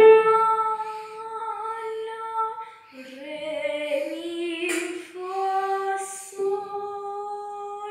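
A young girl sings a solfeggio sight-singing melody in held, stepping notes while accompanying herself on an upright piano.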